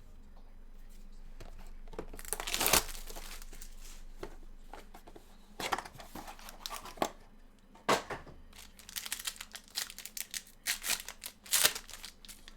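Trading card packs being torn open by hand, the wrappers crinkling and ripping in irregular bursts with a few sharp clicks.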